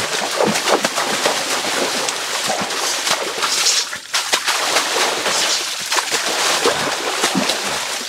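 Hands beating and splashing water hard and fast in a shallow river: a dense, continuous spatter of slaps and spray, with a brief lull about halfway.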